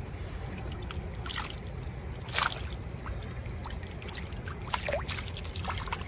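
Water splashing and trickling as small fish thrash in a landing net held in shallow creek water and a hand reaches in among them. A few brief splashes, the loudest about two and a half seconds in, over a steady low rumble.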